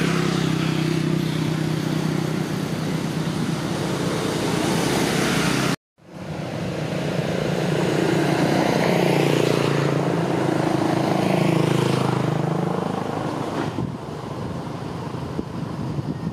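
Motor vehicle engines running: a steady engine drone cuts off abruptly about six seconds in, then engine pitch rises and falls as vehicles pass, and the sound eases near the end.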